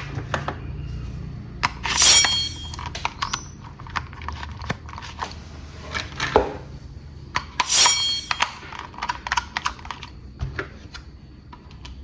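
Small hard objects clicking and clattering as they are handled, with two louder rattling bursts, one about two seconds in and one near eight seconds.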